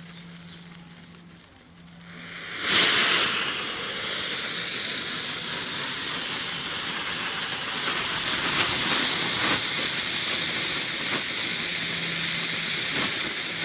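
Homemade firework catching with a sudden whoosh a little under three seconds in, then burning with a steady hiss and scattered crackles.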